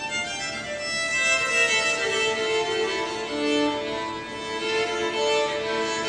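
A string ensemble of violins, violas and cello plays bowed, with a melody line moving over long held notes.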